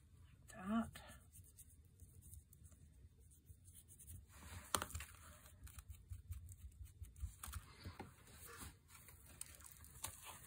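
Faint rubbing and scraping of a paintbrush and fingers on a cast-cement rock, with scattered light clicks and a louder scrub about four to five seconds in. A short hummed voice sound comes about a second in.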